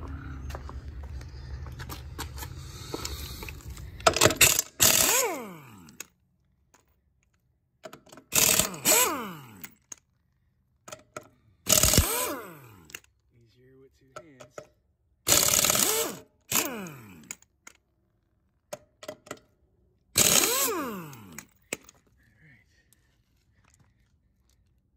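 Five loud metallic clanks, three to four seconds apart, each ringing briefly and falling in pitch, from parts and tools being handled while a tow dolly wheel is taken off. A steady low hum runs under the first few seconds.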